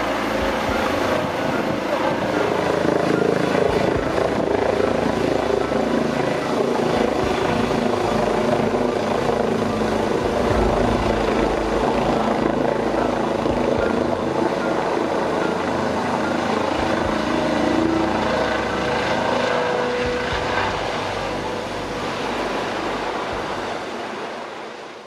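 Eurocopter EC135 air-ambulance helicopter lifting off and passing overhead, its twin turbines and rotor running steadily and loud, dying away at the very end.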